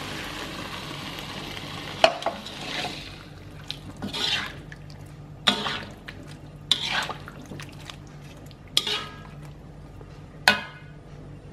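Water poured into a metal wok of simmering spiced fish and tofu, then a metal spatula stirring and scraping in the wok, with about five sharp knocks of metal on metal.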